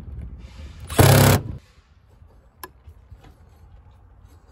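Cordless drill/driver running in one short half-second burst about a second in, driving a mounting screw into the hydrant faceplate; a faint single click follows a second or so later.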